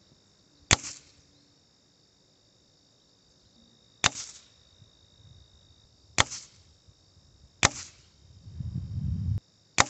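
Five shots from a Hatsan 125 .22-calibre spring-piston air rifle, pellets striking a cardboard target. Each is one sharp crack with a short ring after, spaced one and a half to three seconds apart. A brief low rumble comes just before the last shot.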